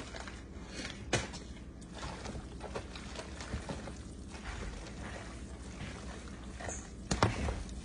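Long-handled spoon stirring and folding a large batch of pasta salad in a big plastic tub: soft, wet mixing noise with scattered light clicks of the spoon against the tub, and a louder clunk about seven seconds in.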